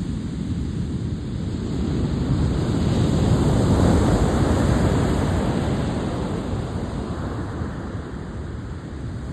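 Ocean surf with wind buffeting the microphone, a rushing noise that swells about three to four seconds in and slowly eases off.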